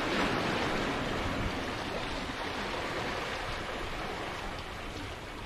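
Small waves washing against jetty rocks: a steady rush of water that eases slightly toward the end.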